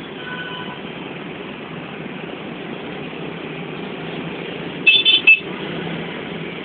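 Steady noise of dense, slow motorbike traffic with many small engines running close by. About five seconds in, a horn gives a quick run of short loud beeps; a fainter horn tone sounds briefly near the start.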